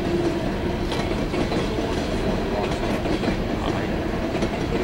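Empty coal cars of a freight train rolling past at a crossing: a steady rumble and rattle of steel wheels on rail, with scattered clicks.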